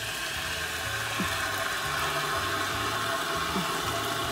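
Irrigation water rushing steadily into a rice paddy after the flow has been opened up, an even hiss with a low hum underneath.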